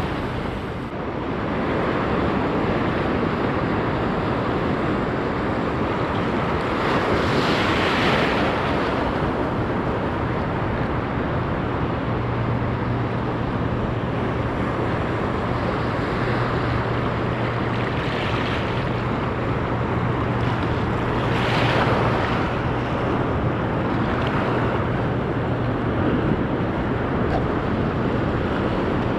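Sea surf breaking and washing ashore in a swell of about a metre, with wind buffeting the microphone. Two louder surges of surf come about a quarter and about three quarters of the way through, and a low steady hum sets in about a third of the way in.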